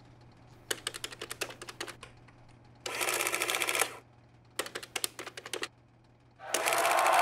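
Three short bursts of rapid mechanical clicking, the middle one running together into a dense buzz, over a faint steady hum. Crowd cheering swells in loudly about six and a half seconds in.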